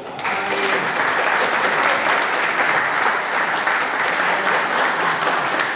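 A small audience applauding, breaking out at the start and keeping up a steady clapping.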